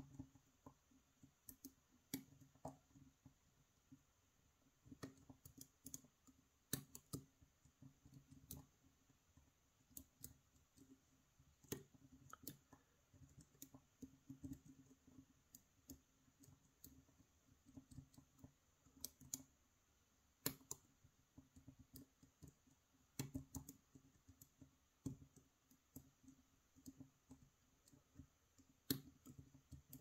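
Faint, irregular clicks of a hook pick and tension wrench working the tapered pin stacks of a brass euro-profile pin-tumbler cylinder, as pins bind, set and slip under tension.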